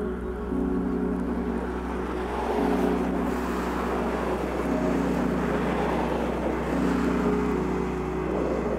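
Ambient background music of sustained chords that change about every two seconds, with the rushing of a car passing on a road swelling up underneath.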